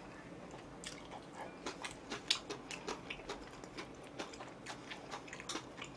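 A person chewing food: faint, irregular wet mouth clicks, several a second.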